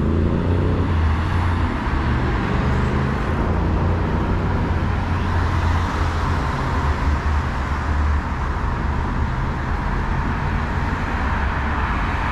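Street traffic with a heavy vehicle's engine running close by, a city bus or traffic at the stop: a steady low hum over road noise. The hum drops away about eight seconds in.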